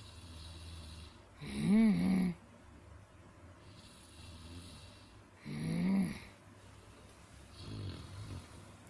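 A person snoring in sleep: loud pitched snores about every four seconds, each rising then falling in pitch, with softer breathing between them and a weaker snore near the end.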